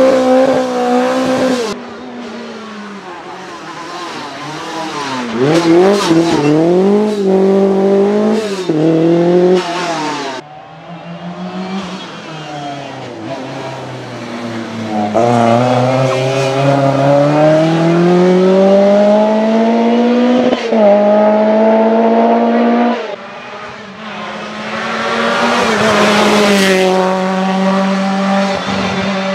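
Lancia 037 rally car's supercharged 2-litre four-cylinder engine in a string of short clips: first held at high revs, then revving up and down through gear changes, then one long pull that rises steadily in pitch as the car accelerates hard.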